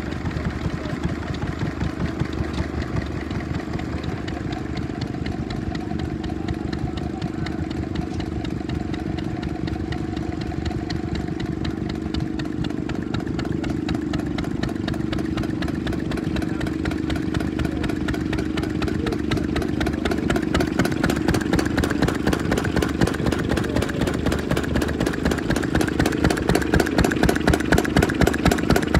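Vintage stationary engines running, their exhaust beats making a steady, even chugging rhythm. It grows louder from about two-thirds of the way in as a running Lister Junior engine comes close, its beat then sharp and regular.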